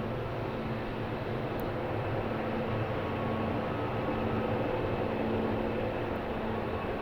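Airbus A320neo's Pratt & Whitney PW1100G geared turbofan engines running: a steady jet rush with several steady whining tones, swelling slightly in the middle.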